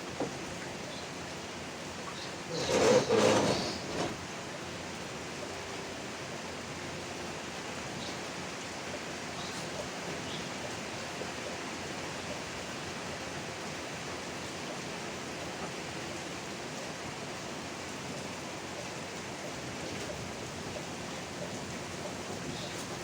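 Steady rain falling, an even hiss. About three seconds in, a louder rough sound swells and fades over a second or so.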